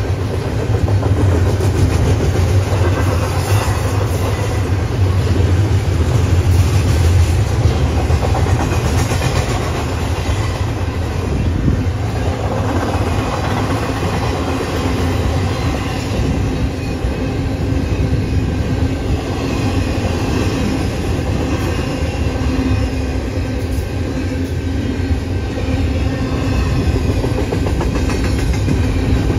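Union Pacific freight train rolling past, a steady, continuous rumble of wheels on rail.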